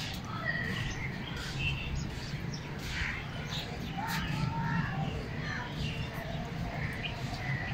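Several birds chirping and calling in short, scattered calls over a low, steady background rumble.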